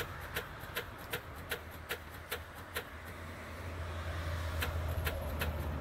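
Dual-rear-wheel pickup truck failing to start: steady ticking about two and a half times a second, with a low hum swelling in the second half, and the engine never catches. The owner takes it for flat batteries or a failed starter.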